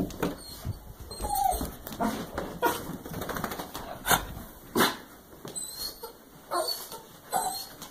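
Small fluffy dog giving a string of short whines and yips, with a few sharper, louder calls about four and five seconds in.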